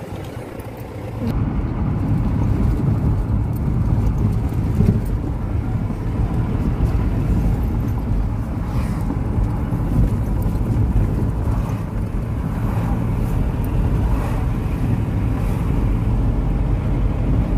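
Vehicle engine and road noise heard from inside the cabin while driving, a steady low rumble that grows louder about a second in.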